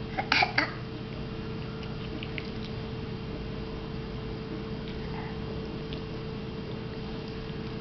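A quick cluster of sharp knocks or clicks about half a second in, then a steady low hum with a constant tone and a few faint ticks.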